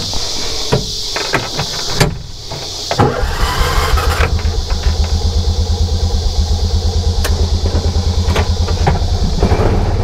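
A Kubota utility vehicle's engine being started with the key: a click about two seconds in, a short crank about a second later, then the engine catches and idles with a steady low pulsing.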